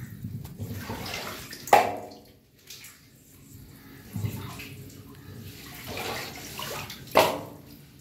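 Sewage water sloshing and splashing as gloved hands work through it at the bottom of a manhole, with two loud splashes, one about two seconds in and one near the end.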